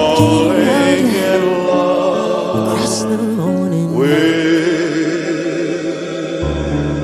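A song's closing passage: layered sung notes held with vibrato over backing accompaniment, with the bass dropping out for a few seconds in the middle and coming back near the end.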